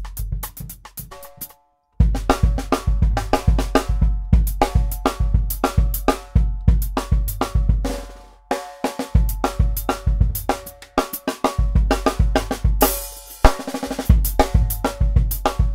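Drum kit groove featuring a 5x14" Gretsch hammered brass snare, with bass drum, hi-hat and cymbals, the snare ringing between hits. The playing cuts out completely for about half a second near the start, then resumes, with a cymbal crash a little before the end.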